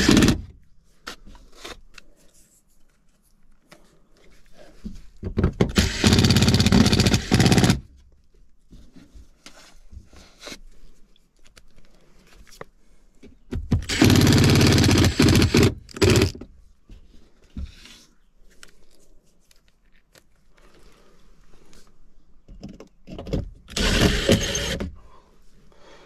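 Cordless impact driver running in three bursts of about two seconds each, driving screws to close the air handler's access panel.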